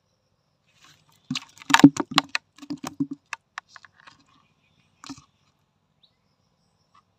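Small fish flapping in the bottom of a plastic bucket, its body slapping the plastic and splashing the shallow water: a quick flurry of knocks and slaps that thins out, then one more a couple of seconds later.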